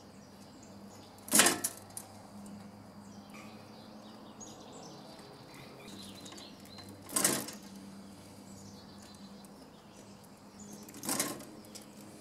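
Stiff electrical cable and copper wire being handled and bent at a plastic electrical box: three short, loud rustling scrapes with faint clicks between them, over a steady low hum.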